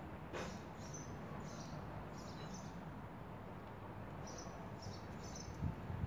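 Faint bird chirps, short high calls repeated in small groups, over a steady low hum, with a light click about half a second in and a soft knock near the end.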